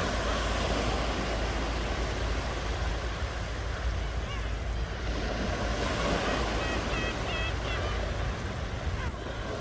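Ocean waves washing in steadily, with a few short high-pitched calls about two-thirds of the way through.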